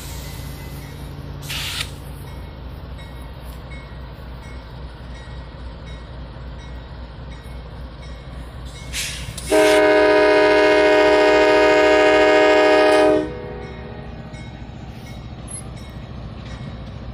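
A Norfolk Southern diesel freight locomotive approaching a grade crossing sounds one long air-horn blast, a steady multi-note chord about three and a half seconds long, starting a little past halfway through. It plays over the steady low rumble of the approaching locomotives.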